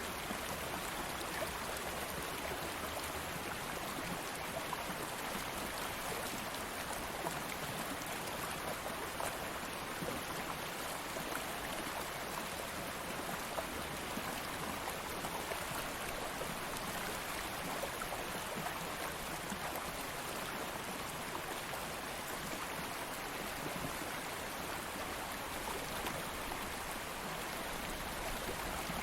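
Stream water flowing steadily over rocks, an even rushing with fine splashing and trickling.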